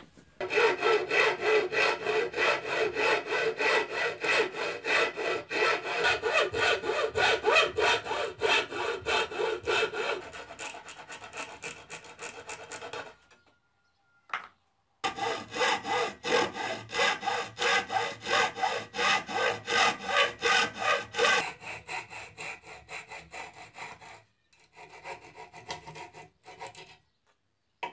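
Hand hacksaw cutting notches in plywood, with a steady rhythm of back-and-forth strokes of about three a second. The sawing stops briefly a little past halfway and again twice near the end.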